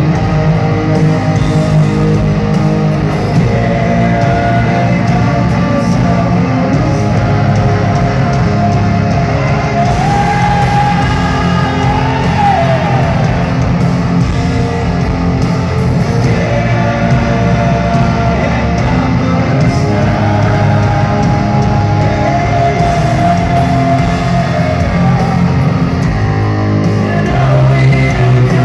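Rock band playing live through a concert PA: electric guitars and drums, with a sung vocal line coming in and out, heard from among the audience.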